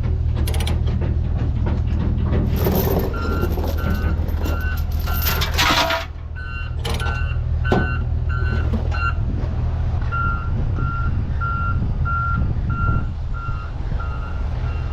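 Heavy-equipment backup alarm beeping about twice a second over a diesel engine running steadily, with a short pause in the beeping around the middle. A loud hiss of air sounds for a few seconds near the start.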